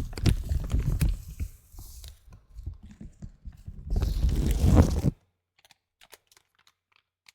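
Plastic bag crinkling and rustling right against the microphone in two loud spells, the second about four seconds in, followed by a few faint clicks.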